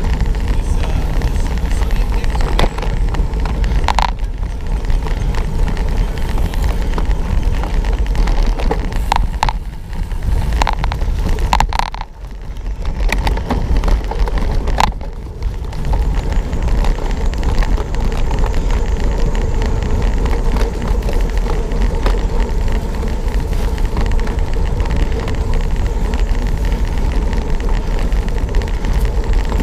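Wind rumbling on the microphone of a camera riding along on a cyclocross bike as it rolls over bumpy grass and dirt, with sharp clicks and rattles from the bike over the bumps, clustered between about 9 and 15 seconds in.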